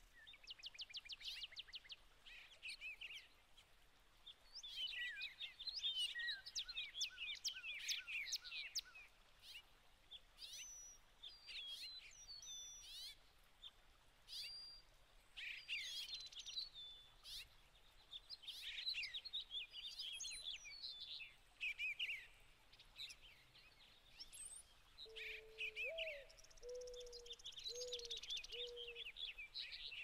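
Wild birds calling outdoors: many small birds chirping in quick series of high notes, and near the end a dove cooing five low notes, the second one rising.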